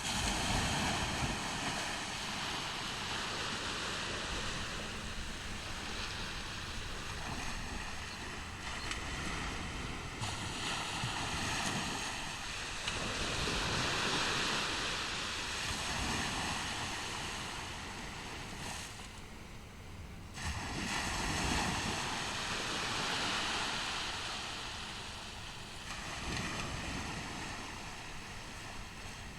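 Ocean waves breaking and washing onto a beach, the surf rising and falling in slow surges every several seconds.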